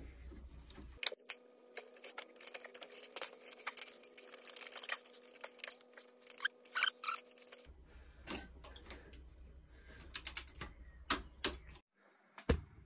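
Irregular light metallic clicks, clinks and small knocks of hand tools and fasteners being handled while a motorcycle's front fork leg is refitted into its clamps. A faint steady hum runs under the clicks through the middle.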